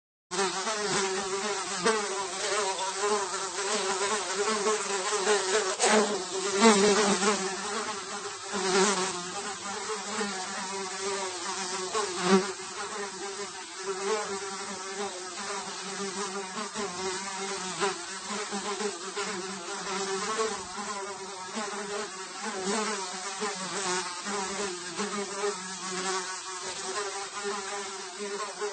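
A single fly buzzing in flight, its wing buzz wavering in pitch and swelling and fading as it moves about, loudest a few times in the first half.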